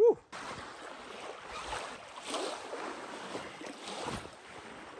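A short, loud vocal sound right at the start, then steady wind and water noise with soft rustling and shuffling as a heavy nylon duffel bag holding an inflatable floating dock is handled and unpacked on sand.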